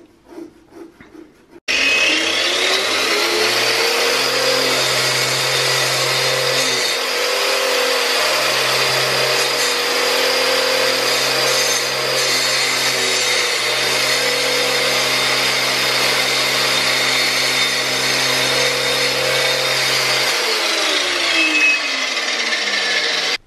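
Handheld power tool running against a plaster wall, with a wet-and-dry vacuum drawing off the dust through a hose attached to the tool. A loud, steady motor whine cuts in abruptly about two seconds in; near the end the motor's note slides down.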